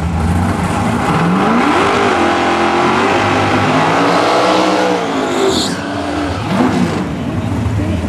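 Third-generation Chevrolet Camaro drag car doing a burnout: the engine revs up about two seconds in and holds high revs with the rear tyres spinning, drops off around five seconds in, then revs briefly once more near the end.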